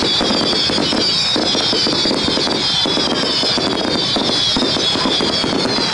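Fireworks going off continuously: ground fountains hissing and crackling with many small pops. Over them, high whistling tones glide down in pitch again and again.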